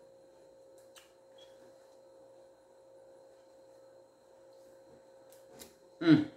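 Steady faint hum with a held tone, a few faint clicks from hands working a paper napkin, then near the end a short, loud vocal sound from the woman that falls in pitch.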